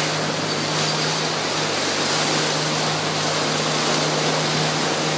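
Steady, even rushing background noise with a faint low hum underneath, holding level throughout without swells or breaks.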